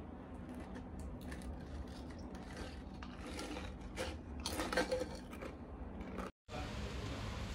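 Pringles crisps rattling in their cardboard can as it is tipped up and crunching as they are chewed: a run of irregular crackles, loudest about four to five seconds in. It cuts off abruptly after about six seconds, followed by a steady hiss.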